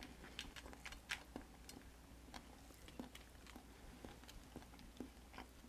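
Faint eating sounds: soft, irregular clicks and smacks of chewing, with no steady sound underneath.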